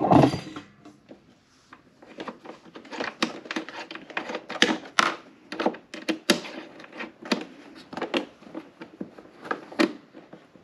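A knock at the start, then a run of irregular light clicks and taps as a 5 mm Allen key works a bolt loose and out.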